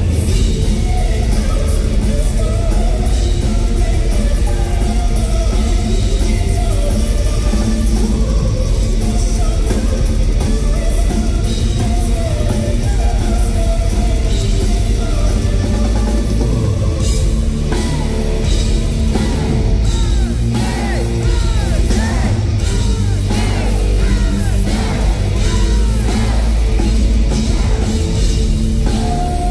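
Symphonic metal band playing live at full volume, heard from the audience over the PA: distorted electric guitars and a full drum kit, with a woman singing lead. The band comes in at full force right at the start.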